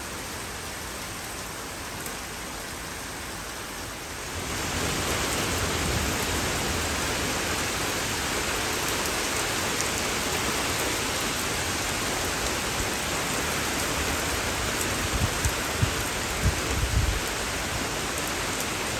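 Heavy rain in a thundery downpour, with water pouring off a roof: a steady hiss that gets louder about four seconds in, with a few low thumps near the end.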